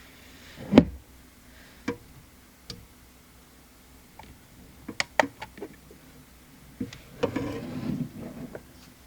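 Handling noises of nail-art work: a series of small knocks and clicks as polish bottles and tools are picked up and set down, the loudest about a second in, with a short rustle about seven seconds in.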